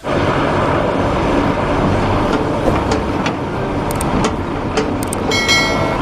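Heavy diesel machinery working: an excavator loading earth into a dump truck, its engine running steadily with scattered knocks. A brief high tone sounds a little past five seconds in.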